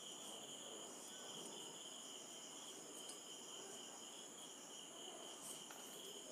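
Faint, steady high-pitched insect trilling that carries on without a break.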